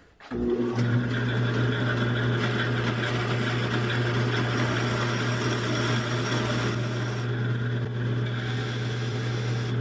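Bandsaw running with its quarter-inch blade mounted backwards: a steady electric-motor hum, with the rasp of a grinding stone held against both sides of the moving teeth to grind down the tooth set. The sound comes in suddenly just after the start and then holds steady.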